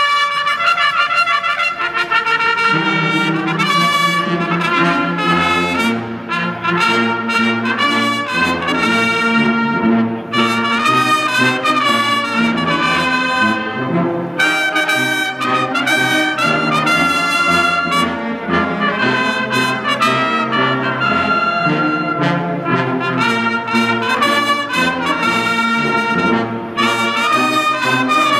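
Military brass band of trumpets and lower brass playing a tune together, several notes at once, the melody moving on without a break.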